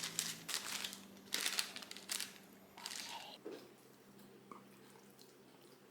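Kitchen handling noises: a few short rustles and taps in the first few seconds, then only a faint steady hum.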